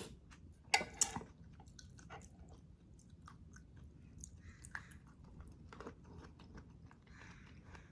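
A person chewing food with wet mouth sounds, with a couple of sharper clicks about a second in and soft scattered clicks after.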